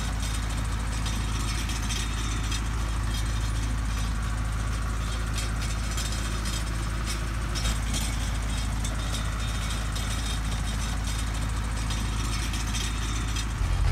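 A steady low rumble, like an engine running, with a constant crackling noise over it that holds unchanged throughout.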